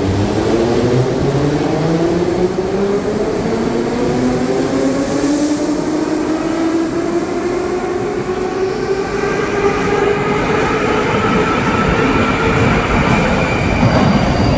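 Ezh3 metro train pulling out of an underground station, its traction motors whining higher and higher in pitch as it gathers speed over the rumble of wheels on rail. In the second half another metro train is heard approaching.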